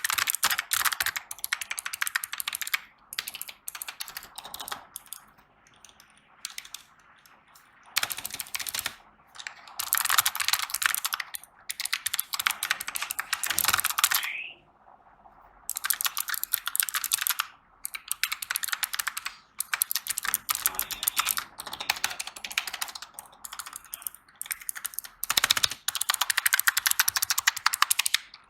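Fast typing on a computer keyboard for a switch sound test: dense runs of key clicks in bursts, broken by short pauses, the longest about five seconds and fourteen seconds in.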